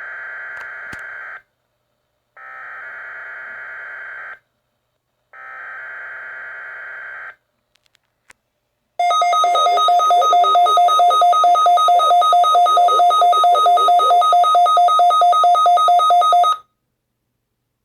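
Emergency Alert System header data played three times: three buzzing electronic data bursts of about two seconds each, a second apart. After a short pause a loud two-tone alert attention signal sounds for about seven seconds, pulsing about five times a second, then cuts off.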